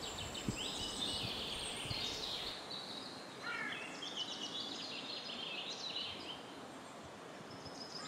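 Birds singing: several short, high chirping and trilled phrases, one of them a falling trill about three and a half seconds in, over a faint steady outdoor hiss.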